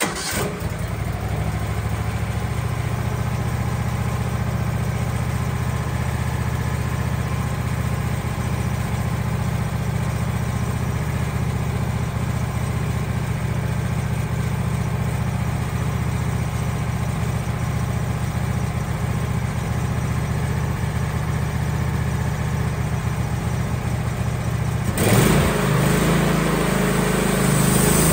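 Wood-Mizer LT15 portable band sawmill's engine starting and then running steadily at idle. About 25 seconds in it speeds up and runs louder.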